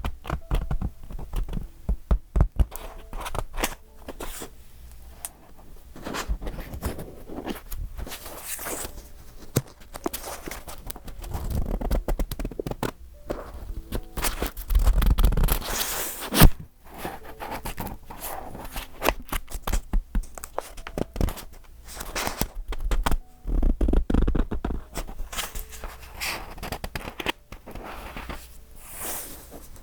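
Pages of a decorated A5 paper journal being turned and handled: paper rustling and scraping with small taps and thuds, and several louder page-turn rustles along the way.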